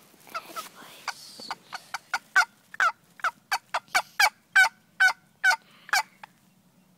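Turkey calling: a run of about fifteen short, sharp, warbling calls, faint for the first two seconds and then loud, stopping about six seconds in.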